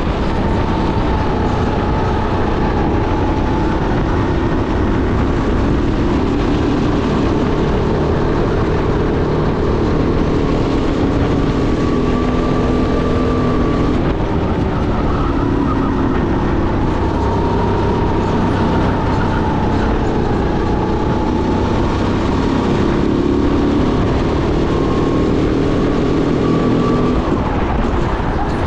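Sodi SR5 rental go-kart engine heard onboard at racing speed, its pitch rising and falling again and again as the kart lifts off and accelerates through the corners.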